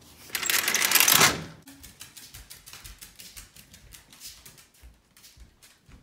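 A door opening with a loud rattling scrape lasting about a second, then a run of light clicking steps across a hardwood floor.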